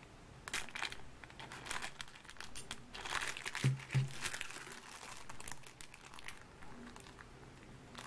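Clear plastic packaging crinkling irregularly as sealed knife kits in plastic bags are handled and shifted. Two dull knocks come close together about halfway through.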